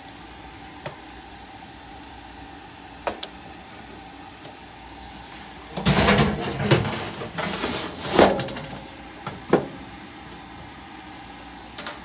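Furnace blower assembly being slid back into its sheet-metal cabinet: a few light clicks, then a run of metal scraping and clanking from about six seconds in, ending in one sharp knock near the end. A steady low hum sits underneath.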